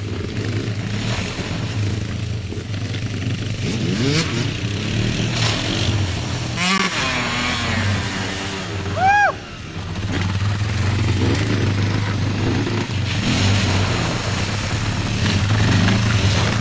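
Several ATV engines and a dirt bike running together, revving up and down as they ride around a mud pit. About nine seconds in there is a brief high tone that rises and falls.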